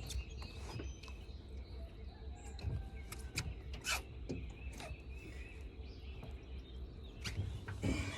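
Small birds chirping over a steady low rumble, with a few sharp clicks scattered through it and a cluster near the end.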